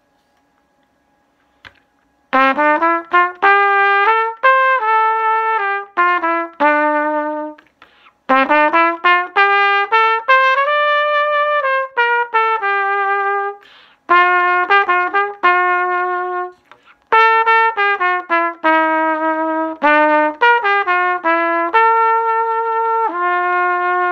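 Pujé v4 trumpet with a gold brass bell, played with a Deep Vee mouthpiece (a very deep flugelhorn-style cup on a trumpet shank), playing a melody that starts a couple of seconds in and runs in four phrases with short breaks for breath. Recorded through a phone's built-in microphone.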